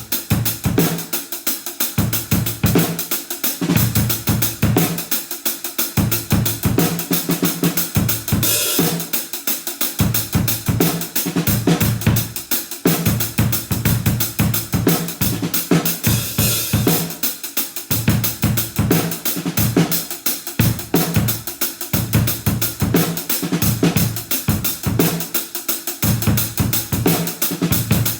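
Acoustic drum kit played in a steady groove, with kick, snare and hi-hat and cymbal crashes about eight seconds in and again about sixteen seconds in. It is heard as the bare room sound, with no mics or processing.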